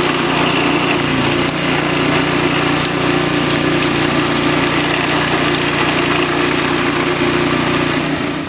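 Hailstorm: a dense, steady roar of hail pounding down, which cuts off suddenly near the end.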